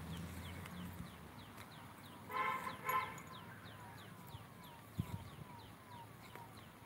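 Two short farm-animal calls about half a second apart, over falling chirps that repeat a few times a second in the background, then a single knock.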